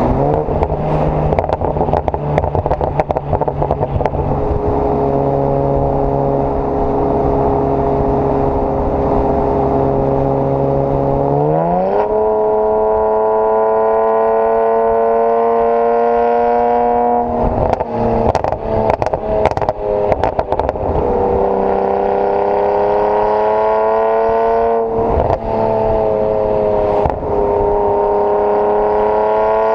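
BMW 335i's twin-turbo straight-six running through decatted downpipes and an AC Schnitzer quad exhaust. It holds a steady note, then revs up sharply about twelve seconds in and stays at higher revs that sag and climb again. A cluster of sharp exhaust crackles comes in the middle, and two more single cracks come later.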